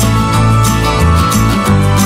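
Loud background music with a steady beat over a heavy bass line.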